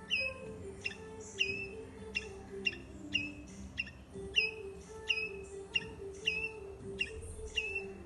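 Palm squirrel giving its sharp, bird-like chirp over and over, about two chirps a second.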